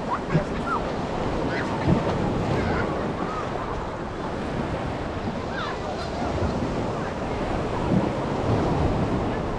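Sea waves washing steadily, with wind buffeting the microphone and faint distant voices now and then.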